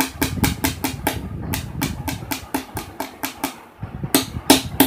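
A small metal hammer taps quickly on a metal prong-type trouser hook, driving its prongs through the cloth to fix it in place. There are about four light taps a second in runs, with a short pause about three and a half seconds in, and the loudest taps come near the end.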